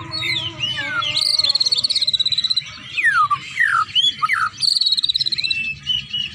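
A songbird singing: a rapid, high trill, twice, with quick falling whistles between them.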